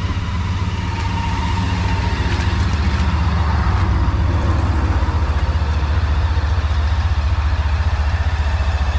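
Motorcycle engine running with a steady low, rapid pulsing beat, growing louder over the first few seconds as it pulls up close, then idling.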